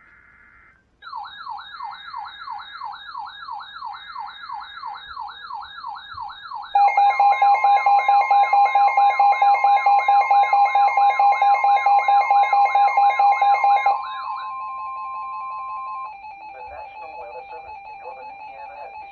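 NOAA Weather Radio emergency alert: three short bursts of SAME header data tones, then a weather alert receiver's alarm sounding a fast warbling siren. About seven seconds in, a loud steady attention tone joins, pulsing with the warble, and it cuts off about fourteen seconds in, leaving fainter steady tones.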